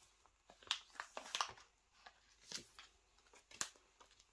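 Photocards and plastic card sleeves being handled: a run of short rustles and clicks, busiest about a second in, with another sharp one near the end.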